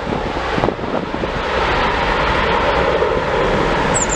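Steady rushing jet engine noise from an Aer Lingus Airbus A330 rolling out on the runway after landing.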